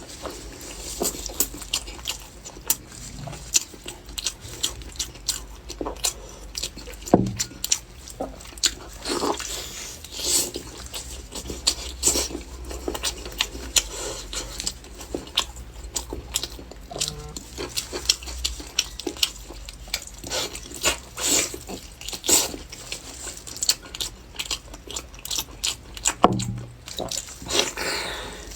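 Close-miked mukbang eating of pork knuckle: irregular chewing, biting and wet mouth smacks, with a couple of heavier bites about 7 s and 26 s in.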